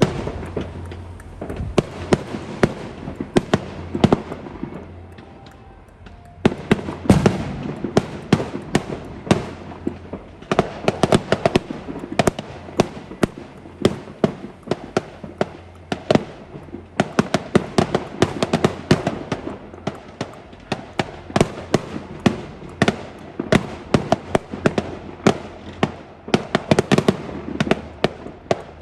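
Fireworks going off in quick succession: a dense string of sharp bangs and crackles that thins out briefly about five seconds in, then picks up again.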